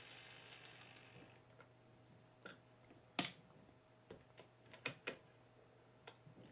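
N-gauge model train running along the track with a faint hiss that fades out about a second in as it stops, followed by a series of sharp mechanical clicks from the layout's controls and turnouts, the loudest about three seconds in.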